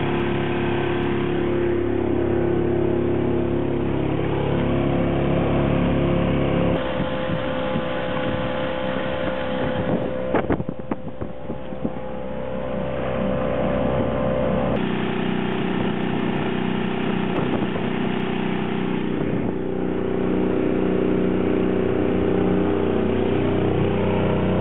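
Small Honda 2 hp four-stroke outboard motor running steadily at two-thirds throttle, its maximum speed, while pushing a small sailboat. The engine's tone changes abruptly twice, about a third and two-thirds of the way through.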